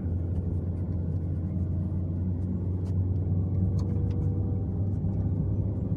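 Vehicle engine running at a steady, even speed: a constant low drone with a few faint clicks, as heard while on the move.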